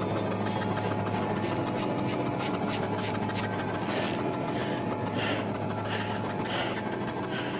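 Film soundtrack: a steady low hum under a quick, even high ticking of about four a second. After about four seconds the ticking gives way to softer pulses, about three every two seconds.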